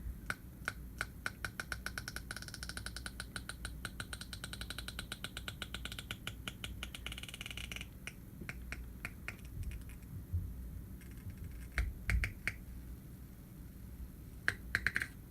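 Rapid, regular clicking, about five clicks a second, that gives way to scattered clicks and taps after about eight seconds.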